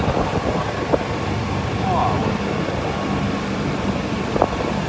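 Steady low engine and road rumble of a small open vehicle driving along a road, with a sharp knock about a second in and another near the end.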